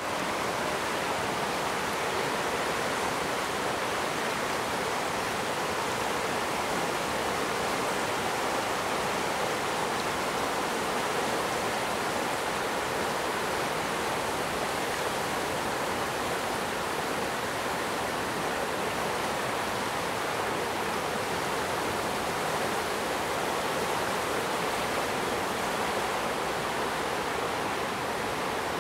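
A swollen river in flood rushing past in a steady, unbroken wash of water; the river is normally a slow-moving stream.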